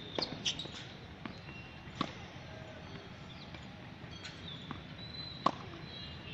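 Tennis balls being struck by a racket and bouncing on a hard court: a few sharp pops, the loudest about five and a half seconds in.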